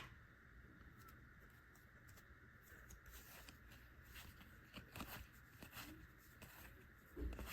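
Near silence with faint rustles and soft flicks of Pokémon trading cards being handled and flipped through from a freshly opened booster pack. A few flicks are a little stronger around five seconds in, and there is a soft low bump near the end.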